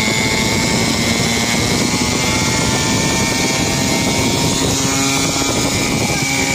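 49cc mini dirt bike's small petrol engine running steadily at road speed, a steady drone with a high whine, mixed with wind rushing over the microphone.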